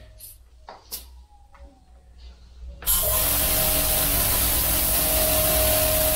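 A couple of light clicks, then about three seconds in the Cheston 1800 W pressure washer starts as the gun's trigger is pulled: a steady hiss of high-pressure water from the lance with the electric motor's steady whine under it.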